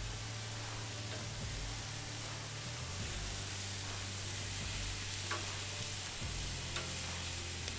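Thin-sliced marinated black bear meat sizzling on a hot grill grate: a steady hiss with a few faint pops.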